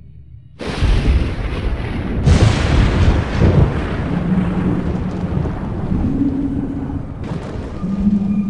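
Cartoon thunder: a sudden crash about half a second in, another about two seconds in and a third near the end, each followed by a long noisy rumble, over low held tones.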